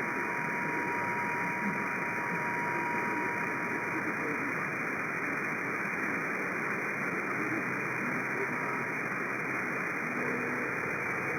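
CB radio receiver on single sideband with no readable station: steady static hiss of band noise, with a faint steady whistle that stops about nine seconds in. The other station has faded out under rough band conditions.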